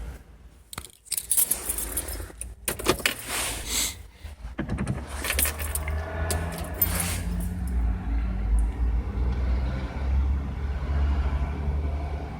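Keys jangling and rattling for the first few seconds, then a Citroen Xsara Picasso 2.0 HDi diesel engine cranks and starts about five seconds in, from a cold start in freezing weather, and settles into a steady idle.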